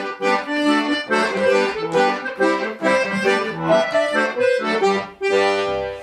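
Accordion playing a brisk chastushka tune on its own, without singing, in quick chords, closing on a long held chord near the end.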